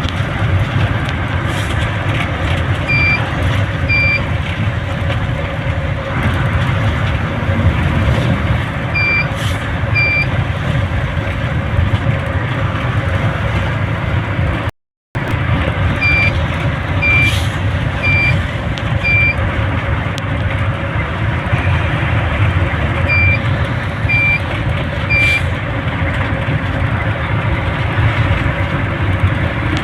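Vehicle travelling along a road: steady engine and road noise, with short high beeps about a second apart that come in groups of two to four. The sound cuts out completely for a moment about halfway through.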